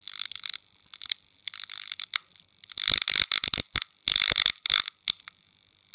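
Electrical buzz and crackle of neon tubes flickering on, as a logo sound effect: irregular bursts of sizzling static broken by sharp clicks, loudest in two clusters around the middle.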